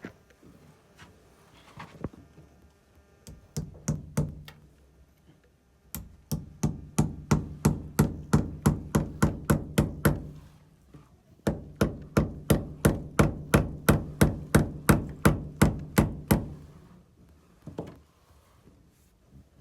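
Rapid, evenly spaced knocking, about four knocks a second, in two runs of about four and five seconds, each knock with a short low ring.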